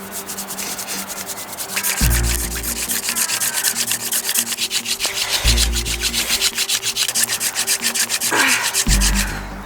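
Mugwort spindle drilling into a poplar hearth board in a hand-drill friction fire: fast, regular back-and-forth rasping of wood on wood. A few low thuds come in between.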